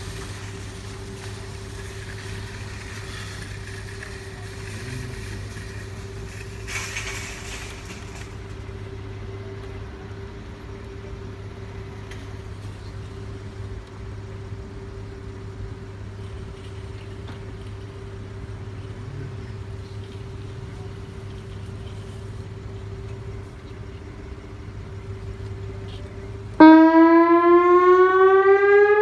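A steady hum for most of the stretch; then, near the end, an outdoor tornado warning siren starts abruptly and loudly, its wail rising in pitch as it winds up for a test.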